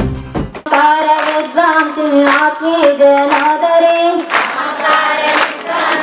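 Music with a heavy drum beat cuts off about half a second in. A woman then sings a devotional song solo, and from about four seconds in a group of women joins the singing with hand claps.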